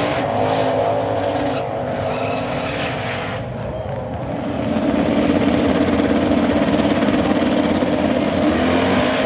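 Drag-racing car engines at high revs: a pair running down the track, then louder and steadier from about four and a half seconds in, from the next cars at the starting line.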